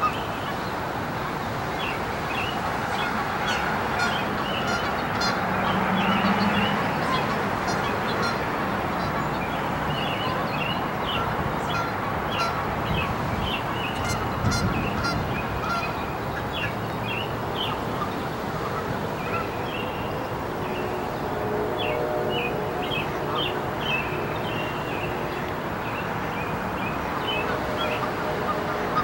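Outdoor ambience by a city park pond: birds chirping and calling again and again over a steady wash of background noise.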